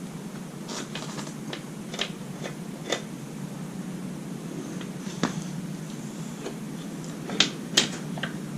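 Scattered short clicks and knocks of tools and parts being handled while a motorcycle's rear wheel is taken off, over a steady low hum; the two loudest knocks come close together near the end.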